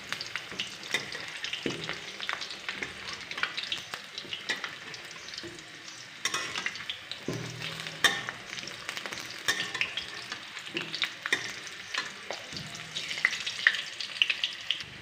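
Halved potatoes sizzling and crackling in hot oil in a kadai, with a metal spatula scraping and knocking against the pan again and again as the potatoes are turned over.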